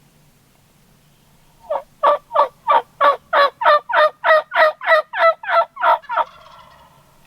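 A run of about fourteen loud turkey yelps, roughly three a second, each note breaking from high to low.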